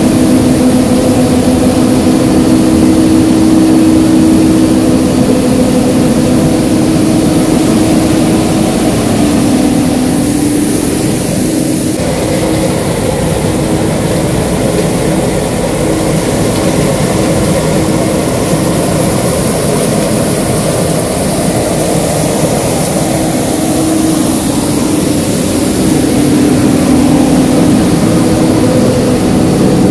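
Johnston mechanical street sweeper working: engine and suction running with a loud, steady hum and hiss while its rotating side brush sweeps along the gutter.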